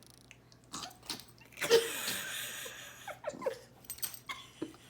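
A sneezing fit: a sudden loud sneeze about a second and a half in that trails off as a long breathy exhale, with shorter sniffs and catches of breath before and after.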